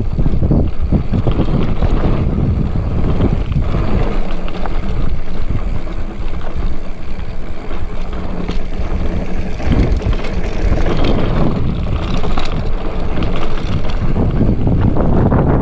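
Mountain bike rolling fast down a dirt and sandstone trail: a steady rumble of tyres on the ground with frequent knocks and rattles from the bike over bumps, under heavy wind buffeting on the camera microphone.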